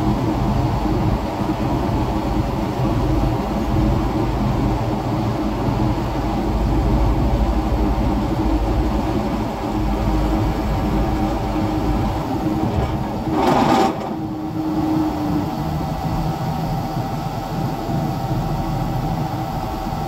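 Heavy diesel engine of a crane running steadily, heard from inside its cab, with a deep rumble and a steady drone. About two thirds of the way through a short burst of hissing noise cuts in, and the lowest rumble eases a little after it.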